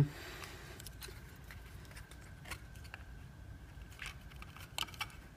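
Faint clicks and light crinkling of a clear plastic display pedestal and packaging being handled as a rubber wristband is worked off it, with a few sharper clicks near the end.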